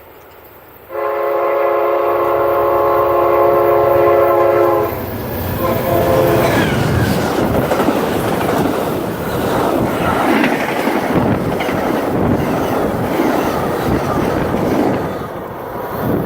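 Amtrak passenger locomotive's multi-chime air horn sounds one long chord about a second in, then two short blasts. After that the train passes close by, with loud wheel-on-rail rumbling and clickety-clack.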